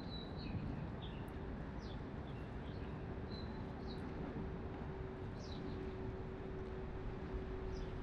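Pier ambience: a steady low background rumble with short, high bird chirps scattered throughout, and a steady hum coming in about a second in.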